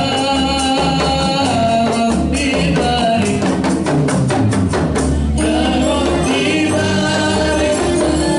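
Samroh ensemble performing an Islamic devotional song: voices singing together over rebana frame drums. About midway the singing drops out for a quick run of drum strokes, then the voices come back in.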